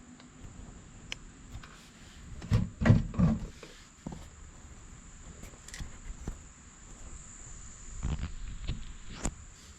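A few low thumps and rustles, clustered about two and a half to three and a half seconds in, with more knocks and a sharp click near the end, over a faint steady high-pitched whine.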